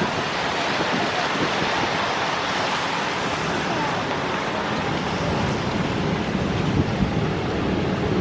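Steady rushing of tyres on a wet road mixed with the spray of a large fountain, as cars and motorcycles pass.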